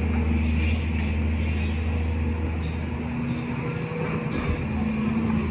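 Case 220C excavator's diesel engine running steadily under work, a low droning hum that eases slightly about three seconds in.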